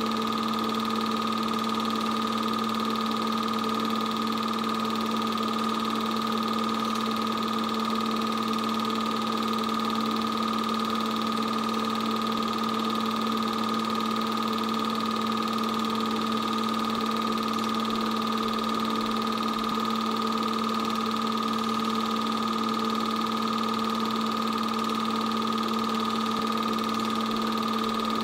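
An 8mm film projector running: a steady, unchanging mechanical whir with a few fixed tones in it.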